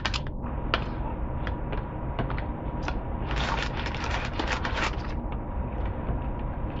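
Chewing a mini pancake bite: small mouth clicks and smacks, with a denser run of crackles from about three to five seconds in, over a low steady hum.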